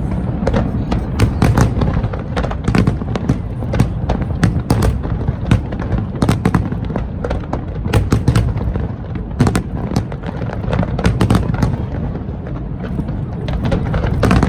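Aerial fireworks going off: a rapid, irregular string of sharp cracks and bangs over a continuous low rumble of bursts.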